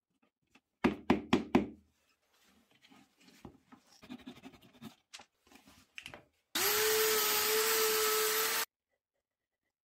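Four quick knocks on wood, then a hand saw rasping as it trims a dowel flush. A cordless drill then runs steadily for about two seconds, boring into pine, and stops suddenly.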